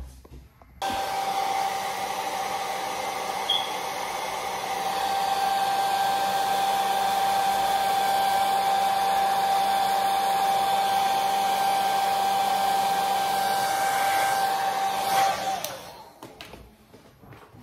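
Handheld hair dryer switched on about a second in, blowing steadily with a high steady whine, then switched off about two seconds before the end.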